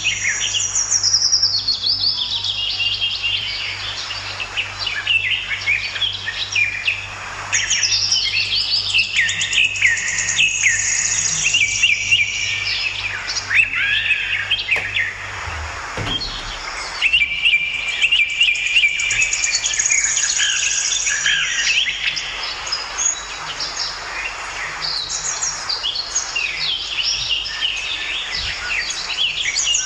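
Many small birds chirping and singing, with short overlapping high calls and quick glides that run on without a break. A low steady hum underneath stops about halfway through.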